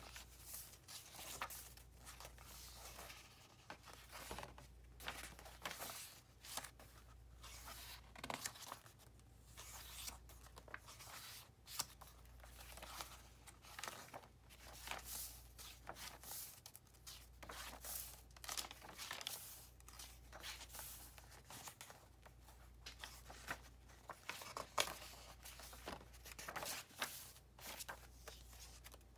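Paper pages of a handmade journal being turned by hand, one after another: faint, irregular rustling and flapping of stiff, stained paper, with sharper flips now and then.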